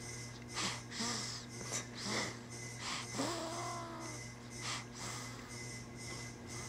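Snoring and snuffly breathing of a sleeper, in short noisy snorts about once or twice a second. A few brief squeaky whimpers slide in pitch, around a second and three seconds in, over a steady low hum.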